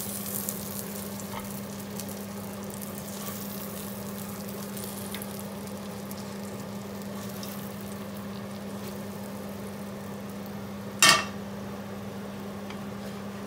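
Herring fillets sizzling in oil in a hot frying pan, over a steady hum from the kitchen extractor fan. A brief clatter about eleven seconds in.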